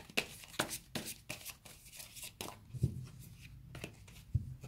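Tarot cards being handled and dealt from a deck: a string of irregular crisp snaps and flicks, with two duller knocks on the tabletop, one in the middle and one near the end.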